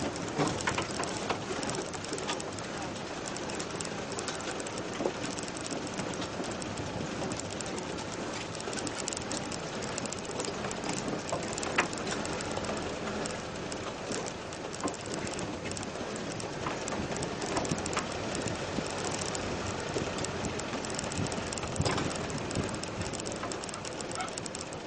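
Off-road vehicle jolting slowly along a rutted dirt track, heard from inside the cab: steady running and road noise full of constant rattling, with a few sharper knocks from bumps, one about twelve seconds in.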